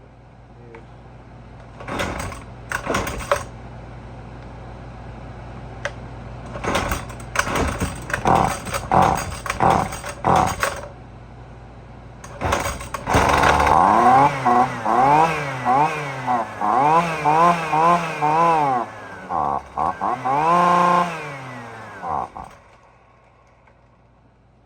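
Husqvarna 128LD string trimmer's two-stroke engine sputtering in short bursts, then running and being revved up and down over and over before it dies near the end. It still won't stay running: the carburettor is not yet set right.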